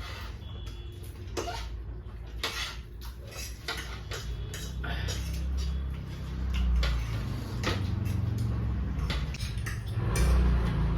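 Eating utensils clinking and scraping against bowls in many short, irregular clicks as noodles are eaten, over a low rumble that grows louder from about halfway.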